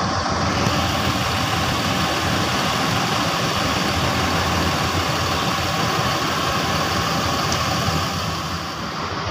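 Large bus diesel engine idling steadily up close.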